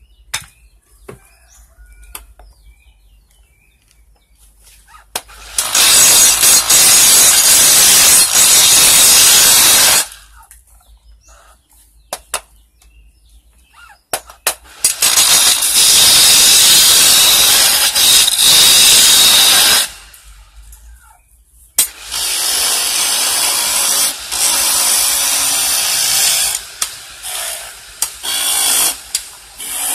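Manual wood lathe turning a wooden mallet handle, a hand-held chisel cutting the spinning wood. There are two loud cutting stretches of about five seconds each, with quieter gaps of light knocks between them, then a steadier, lighter cutting sound over the last eight seconds.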